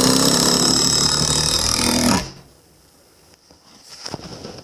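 Power drill driving a long wood screw into a pine board, running steadily under load and then stopping abruptly about two seconds in as the screw seats. A few light knocks of handling follow.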